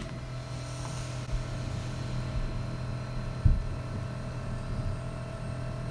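Steady low hum of a Robo R2 3D printer running, with one short low knock about halfway through.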